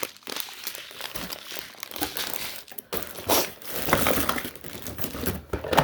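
Candy packaging and wrappers crinkling and rustling as items are handled and pulled out of a box, in irregular bursts.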